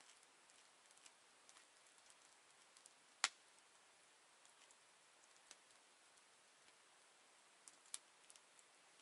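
Campfire crackling faintly: sparse, irregular ticks and pops, with one sharp, much louder pop a little over three seconds in and another near the end.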